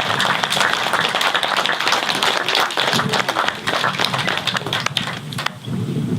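Wedding guests applauding, a dense patter of many hands clapping that stops fairly abruptly about five and a half seconds in.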